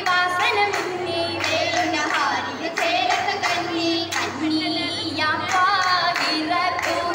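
A group of girls singing an Oppana song, a Mappila song of Kerala, in chorus with a wavering melody, over repeated sharp hand claps from the dancers.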